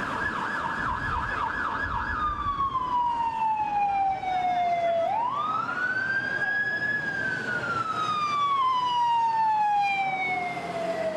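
Emergency vehicle siren: a rapid yelp for about two seconds, then a slow wail that falls, climbs again about halfway through, and falls slowly once more.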